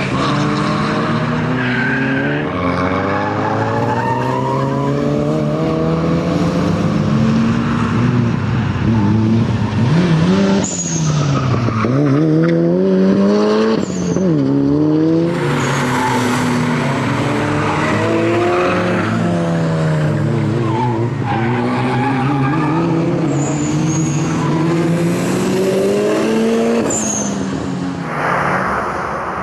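Ford Focus RS Mk1's turbocharged four-cylinder engine revving up and dropping back over and over as the car is driven hard, with short tyre squeals several times.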